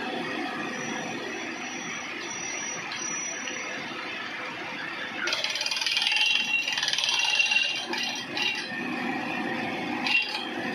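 Compressor-driven air drilling rig running with a steady rattle and a faint constant tone; about five seconds in a louder hiss starts and lasts some three seconds, with two short sharper bursts near the end.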